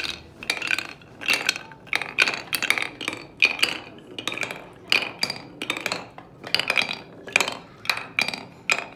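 Glass marbles clicking and clinking against the wooden track pieces of a homemade marble run: a quick, irregular series of sharp clicks, about two to three a second, each with a short ring.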